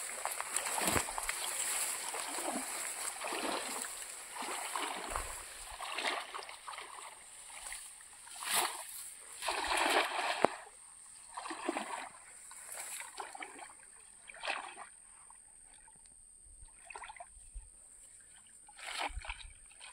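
Splashing in shallow, grassy lake water as a cast net is thrown and worked: a run of irregular splashes and rustles, loudest about nine to ten seconds in, then softer, scattered sloshes toward the end.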